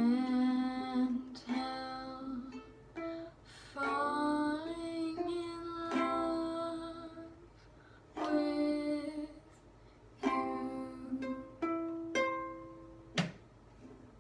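Soprano ukulele played slowly, strummed chords and single plucked notes ringing out and fading, with short pauses between phrases. A young female voice sings along in places.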